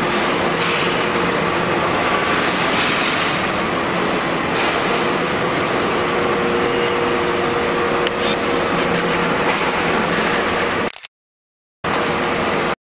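Elastic-tape dyeing and finishing machine running: a steady mechanical whir with a few held tones. It cuts off about eleven seconds in, comes back for about a second, then stops.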